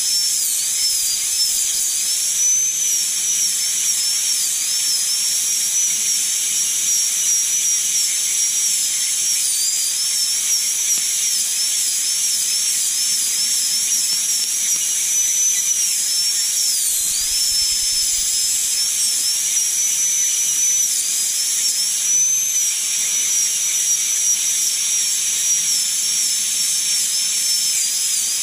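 Pneumatic air scribe working rock off an ammonite: a steady hiss with a high whine whose pitch wobbles up and down as the tip bears on the stone.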